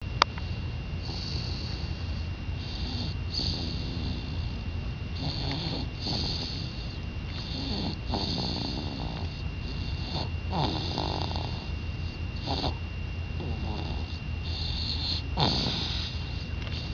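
Snoring in a car: repeated breathy snores, one every second or so, over the steady low rumble of the car. A sharp click sounds right at the start.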